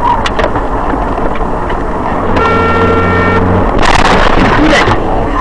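Car driving on a highway, heard through a dash camera's microphone: steady road and engine noise. A steady pitched tone runs for about a second around the middle, and a louder rush of noise follows for about a second just before the end.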